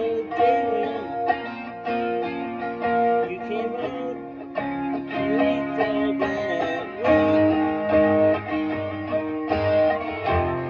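Electric guitar played through a Boss Katana amplifier: a lead line of picked notes held and sustained, with string bends and slides.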